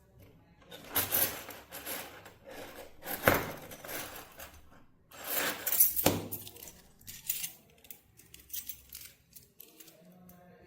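Small metal objects clinking and rattling as they are handled, with a few louder knocks among them.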